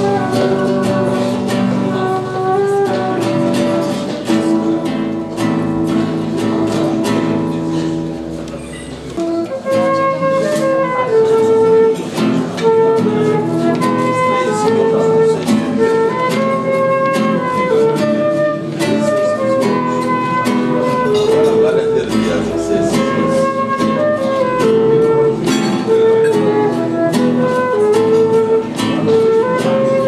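Live acoustic guitar accompaniment, with a small wind instrument playing the melody in sustained notes. The melody comes in clearly about ten seconds in.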